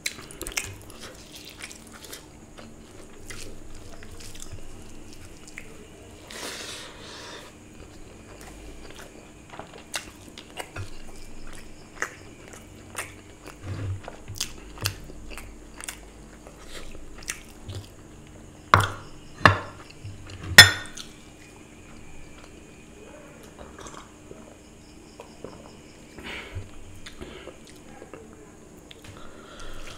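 A person eating curry and rice by hand, close to the microphone: chewing, and fingers mixing rice on a plate, with many small clicks. Three loud, sharp cracks come in quick succession a little past the middle.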